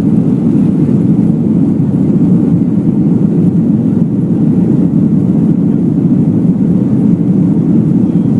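Airbus A330 jet engines at takeoff power, heard from inside the passenger cabin as a loud, steady low rushing noise without breaks.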